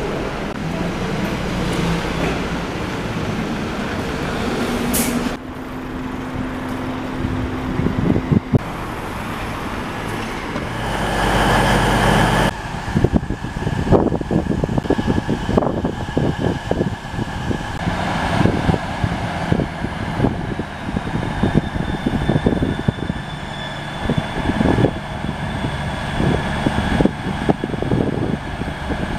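A single-decker bus engine running as the bus drives along the street, with a short hiss about five seconds in. About twelve seconds in this gives way to a Class 158 Express Sprinter diesel train rolling slowly through the station: its wheels click irregularly over rail joints and points under a steady whine.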